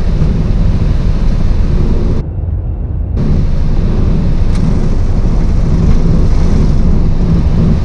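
Flight-deck noise of a Boeing 737-800 on its takeoff roll: its CFM56 engines at takeoff thrust and the rumble of the wheels on the runway, a loud, steady noise heavy in the low end. About two seconds in it briefly turns duller and quieter for about a second.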